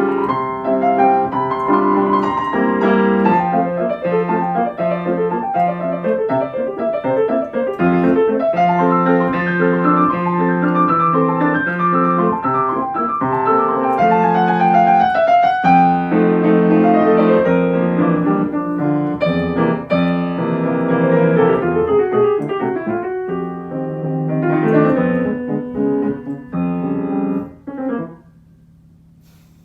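Solo piano playing a waltz, with a running melody over steady chords. It breaks off near the end for a short pause.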